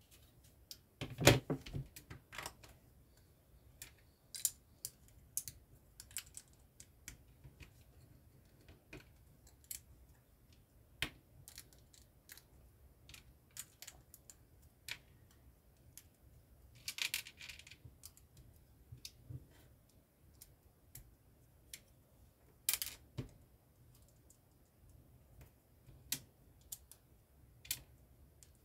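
Plastic LEGO bricks being handled: scattered short sharp clicks and snaps as pieces are pressed together and pulled apart, with louder clusters about a second in, just past the middle, and about three quarters through.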